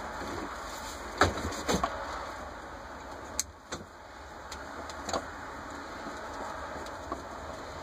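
Screwdriver and parts of a Rochester Quadrajet carburetor being worked by hand during teardown: a few short clicks and knocks, two sharper ones about a second in and fainter ones later, over a steady background hiss.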